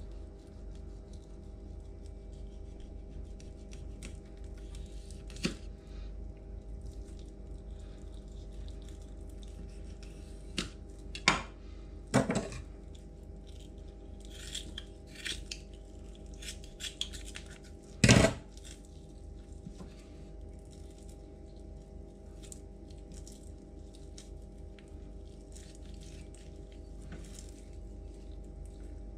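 A knife and kitchen scissors working a piece of trout on a wooden cutting board: scattered small clicks, snips and scrapes, with a few louder knocks around the middle, over a steady low hum.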